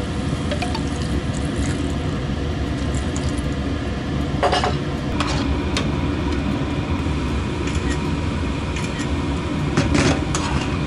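A metal spoon stirring and scraping squid stir-fry in sauce in a frying pan, with a few sharp clinks against the pan, over a steady low rumble.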